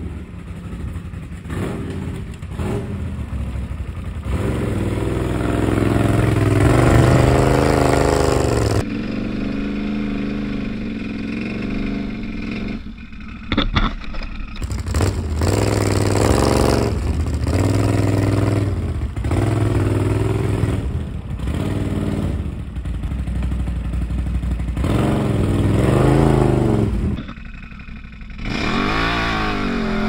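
Can-Am Outlander 850 XMR ATV's V-twin engine revving up and easing off again and again while pushing snow with a plow, dropping off briefly twice.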